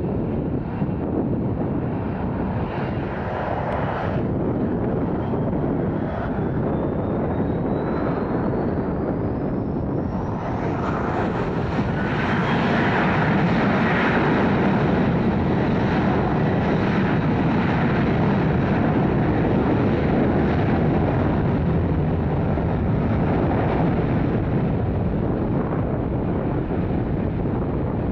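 Jet engines of a WestJet Boeing 737 spooling up. A whine rises steadily in pitch over about ten seconds, then the jet noise grows louder and holds steady as the engines reach takeoff thrust.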